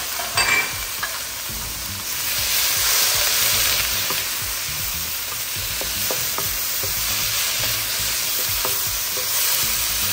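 Diced onion, bell peppers and fresh pineapple chunks sizzling in a wok on high heat, stir-fried with a wooden spatula that scrapes and clicks against the pan. The hiss swells about two seconds in as the juicy pineapple cooks off its water. There are a couple of knocks about half a second in.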